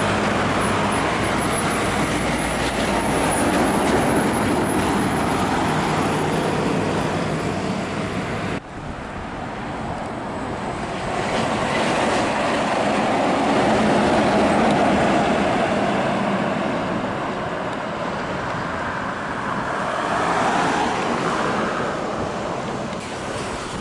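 Heavy diesel semi-trucks driving past on a highway, engines and tyres loud. A Mercedes-Benz Actros with double dump trailers runs first; after a sudden cut about a third of the way in, a Scania Streamline pulling a double grain trailer comes by, its sound swelling and then fading as it passes.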